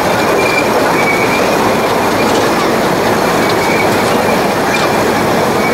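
15-inch gauge ride-on train running on a curve, heard from a passenger car: a steady rumble of wheels on the rails, with short high squeals from the wheel flanges coming and going every second or so.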